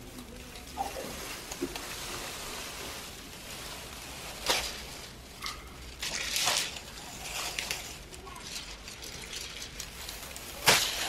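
Thin clear plastic film rustling and crinkling as it is handled over a cutting mat laid with aluminium foil strips, with a few louder crackles.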